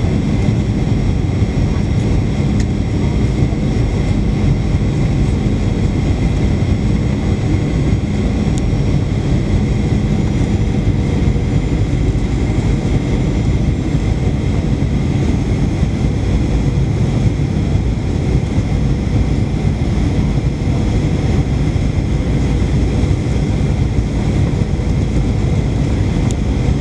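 Steady cabin noise inside a Boeing 737-800 seated by the wing: the CFM56-7B turbofan engines and the rush of airflow make an even low rumble with faint steady tones over it, the aircraft on its approach to land.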